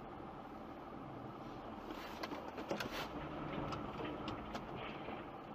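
Steady car road and engine noise heard from inside the cabin, with a scatter of short, irregular clicks between about two and four and a half seconds in.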